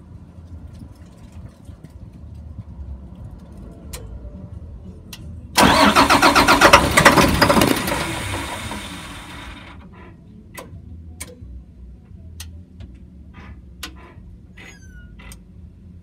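2003 Blue Bird All American school bus engine cranking on its starter. It starts suddenly about five and a half seconds in, runs loud with a rapid pulsing for about two and a half seconds, then dies away without catching. The engine turns over but won't start, which the owner guesses may mean no fuel is getting to it.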